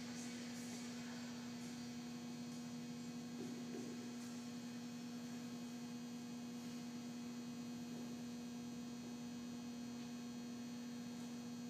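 Steady electrical mains hum: one low tone held unchanged, faint, with a weaker tone above it.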